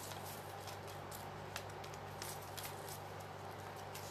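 Faint handling sounds of notebook paper and a plastic tube of acrylic gloss medium: scattered small rustles and ticks over a steady low hum.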